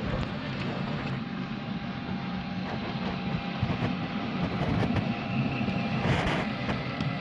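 Model train, an ALP-45DP locomotive pulling bilevel coaches, rolling past on the layout track. Its wheels make a steady rumble with repeated clicks over the rail joints, and the sound swells briefly about six seconds in as the train passes close by.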